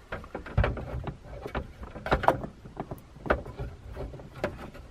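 A hard plastic overhead light housing being pushed up into place against a car's headliner and mirror mount: a string of irregular plastic clicks, knocks and rubbing.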